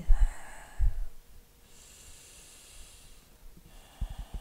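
A woman breathing deeply and audibly, long slow breaths in and out, three in all. A few dull low thumps come with them, the loudest right at the start and a cluster near the end.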